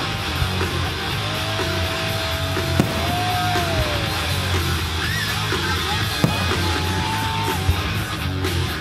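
Loud rock music driven by electric guitar. A few sharp bangs stand out above it, about a second in, near three seconds, past six seconds and near the end.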